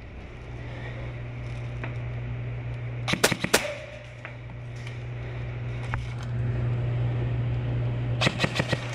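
Two short bursts of airsoft gunfire, each about five rapid shots, a little after three seconds in and again near the end, over a steady low hum.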